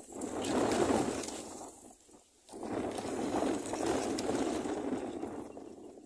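Dry grass of a woven nest rustling and crackling as the adult bird shifts its weight on the rim and leans in. It comes in two long stretches, breaking off briefly about two seconds in.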